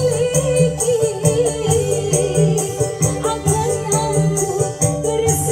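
Dangdut koplo music played loud through DAT DT-860VT speaker cabinets: a wavering, sung-style melody over heavy repeated bass notes and quick tambourine-like jingles in a steady beat.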